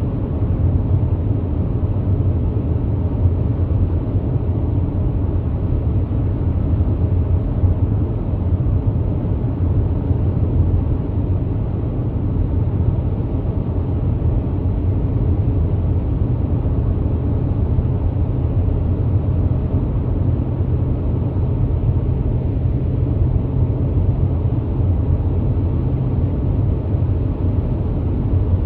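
Car driving along a highway, heard from inside the cabin: a steady low rumble of engine and road noise.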